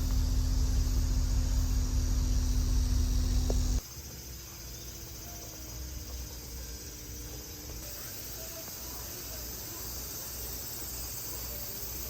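A steady high-pitched chorus of summer insects buzzing. For about the first four seconds a loud low rumble with a steady hum runs over it, then cuts off suddenly.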